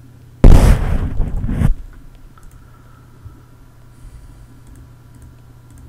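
A loud rush of noise hits the microphone for a little over a second, starting about half a second in, like air or breath blowing across it. After it come a low steady hum and a few faint clicks.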